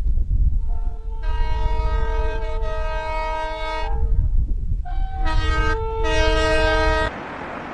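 Diesel locomotive's multi-note air horn blowing over the heavy low rumble of the engine: a long blast, a short one, then another long one that cuts off suddenly about seven seconds in.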